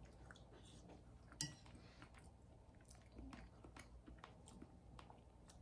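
Quiet chewing, with a few faint clicks of a metal spoon against a ceramic bowl; the clearest click comes about one and a half seconds in.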